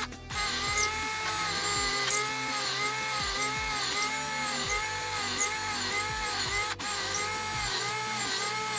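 Background music with a regular warbling figure repeating about every half second over a changing bass line.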